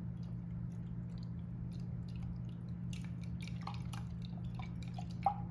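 Faint wet drips and small squishy ticks of lemon butter sauce poured from a jar over lobster meat, over a steady low hum.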